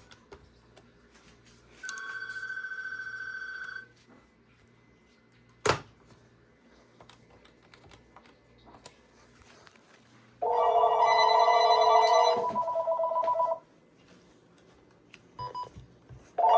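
Desk telephones ringing with electronic ring tones. A fainter steady ring sounds about two seconds in and lasts two seconds, and there is a single sharp click near six seconds. A loud electronic ring then sounds for about three seconds, shifting pitch partway through, and starts again at the very end.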